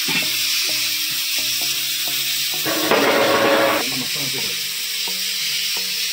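A steady high hiss, most likely a gas burner under a pressure cooker, with faint background music with a regular beat under it. About three seconds in, a louder rushing noise lasts for about a second.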